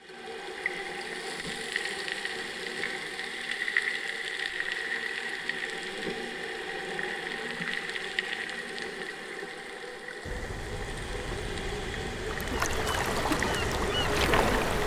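A steady layered drone of a few held tones with scattered small clicks, cutting abruptly about ten seconds in to a rumbling wash of water and wind with clicks and small chirps.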